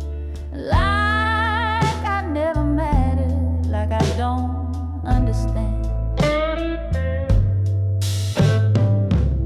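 Slow blues ballad playing: a melody line with wide vibrato over sustained bass notes and drum hits.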